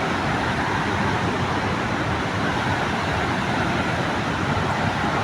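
Steady rush of the fast-flowing Zambezi River at Victoria Falls, an even, unbroken water noise.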